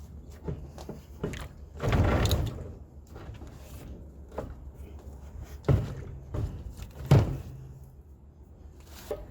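Metal clunks and scraping as a battery hold-down bracket's hooks are worked into place in a semi truck's battery box: several sharp knocks, with a longer scrape about two seconds in, over a steady low hum.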